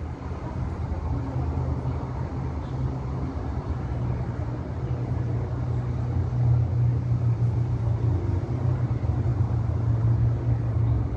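Steady low rumble of outdoor background noise, growing a little louder about six seconds in.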